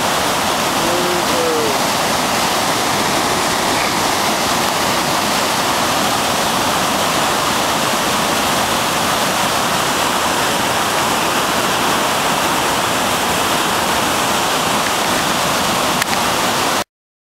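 Muddy flash-flood torrent of the Virgin River rushing and churning over rocks in a steady, loud wash of water noise. It cuts off suddenly near the end.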